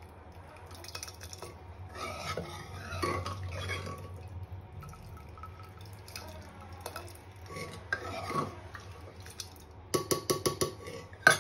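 A steel ladle stirring and scooping vegetable curry in an aluminium pressure cooker, with scraping against the pot and liquid sloshing, over a low steady hum. Near the end comes a quick run of sharp metal clinks, the last one the loudest.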